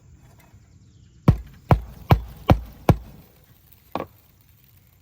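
A roofer's shingle bar being struck under a roof shingle to work loose a nail: five sharp blows in quick, even succession, then one lighter blow.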